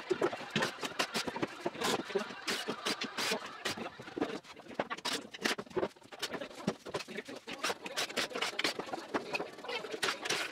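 Irregular knocks, taps and clatter of plywood panels and hand tools being handled and set down.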